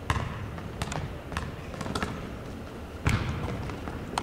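Scattered short, sharp knocks and thuds echoing around a large gymnasium over a low background murmur, the loudest about three seconds in.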